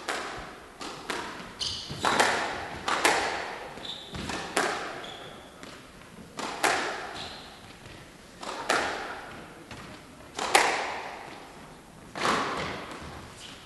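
Squash rally: the ball is struck by racket and cracks off the walls about a dozen times, one to two seconds apart, each hit ringing on briefly in the hall. Between hits come short high squeaks of shoes on the wooden court floor.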